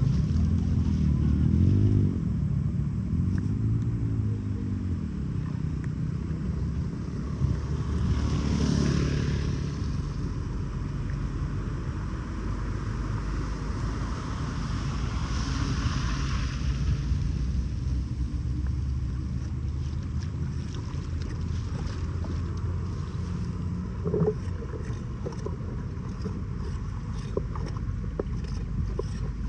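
Floodwater rushing into a street storm drain: a steady rushing noise with two louder, hissier surges, one about nine seconds in and one about sixteen seconds in.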